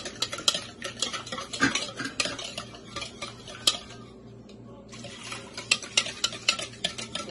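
Wire balloon whisk beating liquid ingredients in a mixing bowl: quick, rapid clicks and scrapes of the wires against the bowl. The whisking lets up briefly about four seconds in, then starts again.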